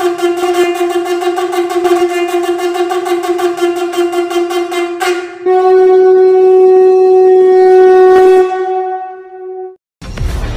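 Conch shell (shankh) blown in long, steady blasts: a rough, rapidly pulsing note gives way about halfway through to a louder, slightly higher, smoother blast, which fades out near the end.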